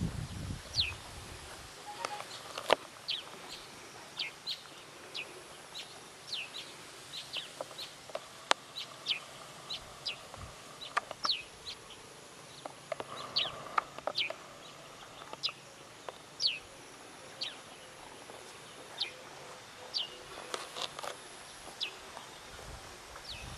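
Birds chirping: short, sharp notes that slide quickly downward, repeated irregularly about once or twice a second.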